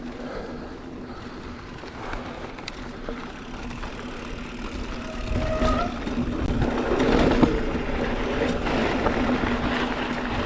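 Mountain bike rolling over a dirt trail: tyre noise on the dirt and rattling of the bike, growing louder about halfway through. A steady low hum runs underneath.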